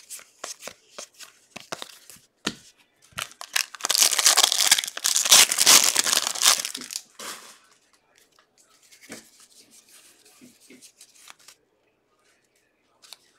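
A basketball card pack's wrapper being torn open with a loud crinkly tearing from about three and a half to seven seconds in. Before and after it come light clicks and rustles of cards being handled.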